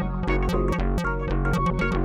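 Background music: a guitar-led instrumental with bass and a steady beat.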